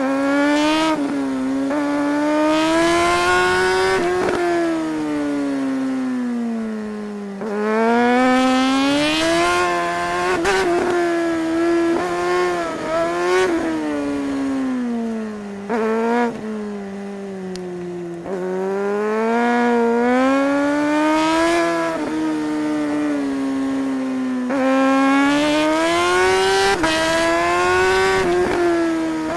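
Suzuki GSR 600's inline-four engine under riding load, its pitch climbing hard under acceleration and dropping sharply at gear changes and when easing off, several times over.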